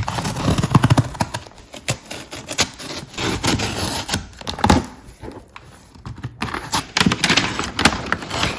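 Cardboard shipping box being opened by hand: irregular scraping, rubbing and clicking of cardboard and packing, with knocks as the box is handled.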